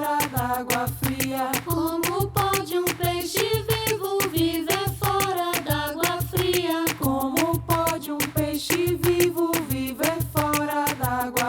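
Women's choir singing a folk work song, with a steady percussive beat throughout.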